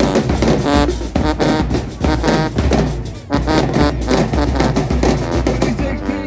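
Marching band music driven by its drumline: bass drums and snares pounding out a fast, steady beat, with short pitched stabs between the hits.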